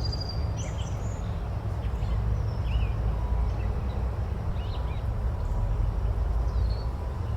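Forest ambience: scattered short bird chirps and calls over a steady low background noise.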